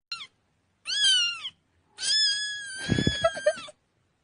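Kitten meowing three times in a high voice: a short cry, a meow that rises then falls, and a long, level meow. A few low knocks sound under the last one.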